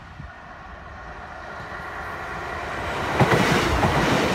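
Class 150 Sprinter diesel multiple unit approaching fast and passing close by, growing steadily louder; from about three seconds in, its wheels clatter rapidly over the rail joints.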